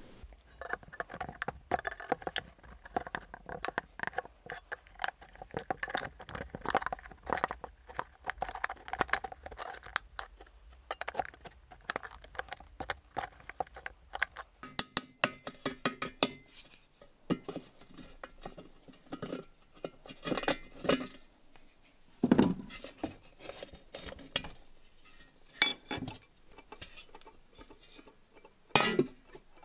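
Pliers and metal fittings clicking, scraping and clinking against the thin, rusty steel shell of an old helmet as the liner's bent tabs are pried out; the shell rings faintly under the rapid clicks. A couple of heavier knocks come later, the last near the end.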